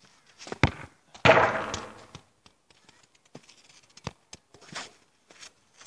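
Football being kicked and touched close by: a sharp thud about half a second in, a louder scuffing thud just after a second that fades out, then a scatter of light taps from the ball and feet.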